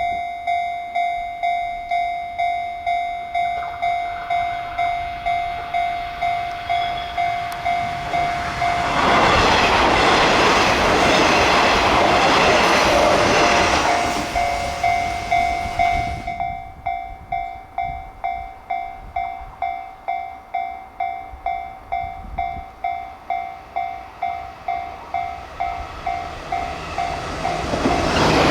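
Japanese level-crossing warning bell ringing, a steady electronic ding about twice a second. From about nine seconds in, a train passes at speed for some seven seconds, its running noise nearly drowning the bell; near the end the noise of another train rises.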